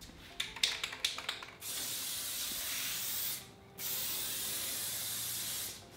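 A few sharp clicks, then two long bursts of aerosol spray hissing from a 2K clear coat spray can, with a short pause between them.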